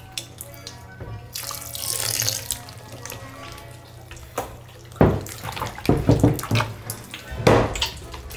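Fluffy slime squelching and slapping wetly as hands knead and stretch it in bowls, with several loud squelches from about five seconds in. About one and a half seconds in, a splashing hiss as liquid activator is poured from a measuring cup into a bowl.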